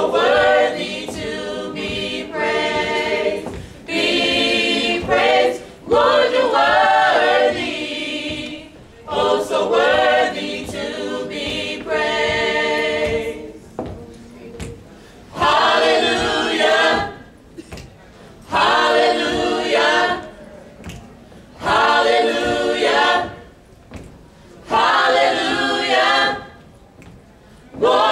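Mixed gospel choir of men and women singing a cappella, in short phrases separated by brief pauses.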